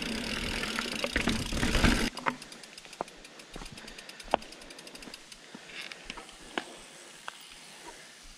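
Mountain bike rolling down a dirt trail. Loud wind and tyre noise on the helmet camera for about two seconds, cutting off suddenly, then quieter rolling with a few sharp clicks and knocks from the bike.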